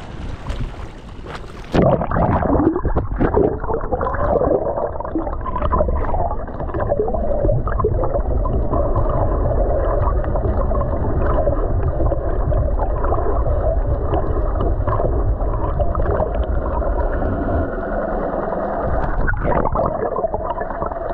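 A camera plunging underwater in a strong current. For the first two seconds there is splashing surface noise; then the camera goes under and the sound turns muffled. Water rushes over the housing, with scattered clicks and crackles and a steady low hum.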